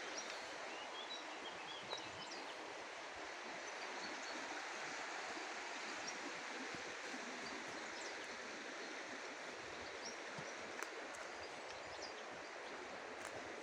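Steady rush of a small stream flowing over rocks, with a few faint bird chirps in the first few seconds and a few sharp ticks scattered through.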